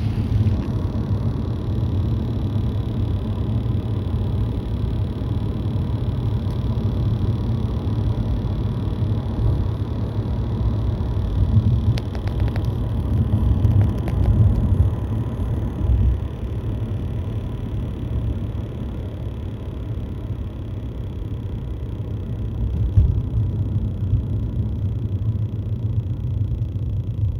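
Toyota Camry WS on the move, heard from inside the cabin: a steady low road-and-drive rumble that swells slightly now and then.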